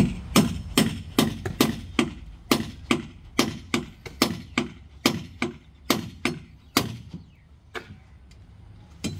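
Hammer blows knocking on the steel clamp of a wooden column formwork, a quick run of sharp strikes about two to three a second, thinning out to a couple of lighter taps near the end.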